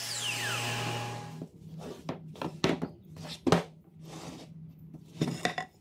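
DeWalt miter saw's motor and blade spinning down after a cut, a falling whine that stops about a second and a half in. Then a few separate knocks of pine boards being handled and set down on a wooden workbench.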